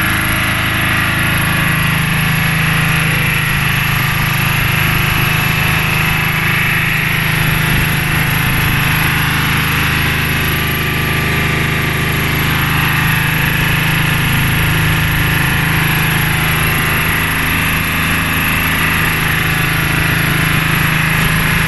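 Lister diesel engine of a wheeled welder set running steadily at a constant speed.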